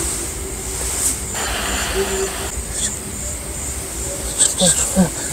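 Outdoor night ambience with a steady high insect drone, and a run of short, falling, hoot-like calls near the end.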